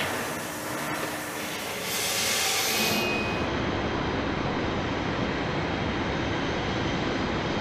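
Steady noise of jet aircraft engines running, with a brief hiss about two seconds in.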